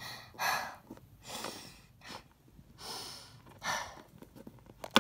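A person's voice making acted crying sounds: about five short breathy sobbing gasps and sniffs, each separate from the next.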